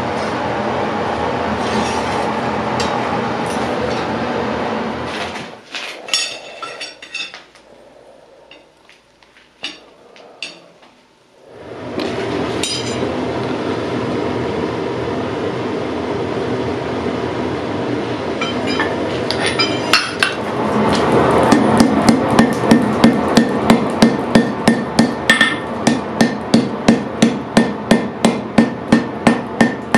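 Hammer blows on steel during forging: after a steady rushing noise and a quieter stretch with a few clicks, a fast, even run of sharp strikes starts about two-thirds of the way in, roughly three a second.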